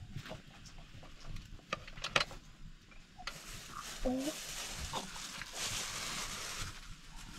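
A metal spoon clinking a few times against a plate and steel tray as soft butter is scooped, followed by a few seconds of steady rustling with a short call-like tone about four seconds in.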